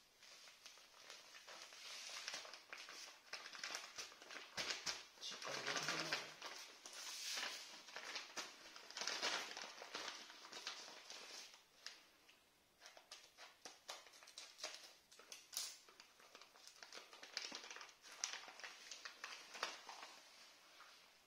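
Packaging being handled and opened: crinkling and rustling with many small crackles and clicks, busiest and loudest in the first half, then lighter and more scattered.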